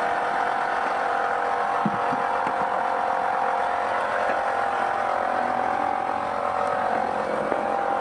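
Homemade smoke machine running with a steady hum, pushing smoke through a hose into the engine's intake for a vacuum-leak test.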